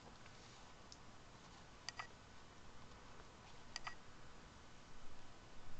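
Quiet room tone with two small, faint clicks about two seconds apart and some light rustling near the end, from paper collage pieces being handled and placed on a canvas.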